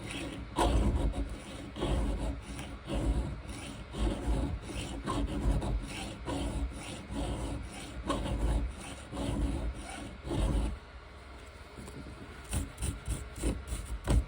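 Hand file scraping across a chainsaw chain's square-ground cutter held in a small filing vise. It makes repeated rasping strokes, about two a second, then stops about three-quarters of the way through, leaving a few light clicks.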